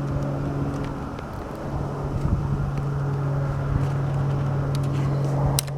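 A steady low engine hum runs throughout, with a few sharp clicks near the end.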